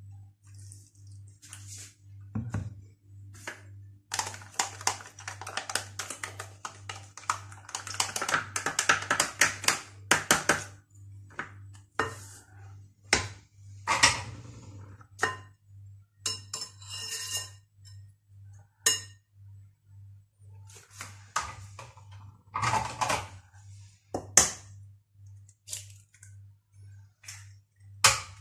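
Metal spoon clinking, tapping and scraping against a glass mixing bowl and small cups as ingredients are spooned into flour. The clinks come in a dense run in the first half, then as scattered single taps.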